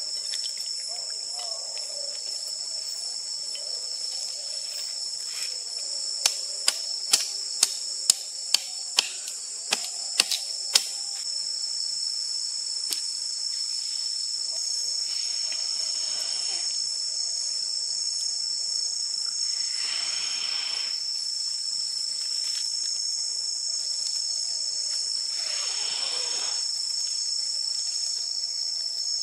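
A steady high-pitched insect chorus of forest crickets. About a fifth of the way in comes a quick run of about ten sharp knocks, roughly two a second, and later three soft rushing sounds of about a second each.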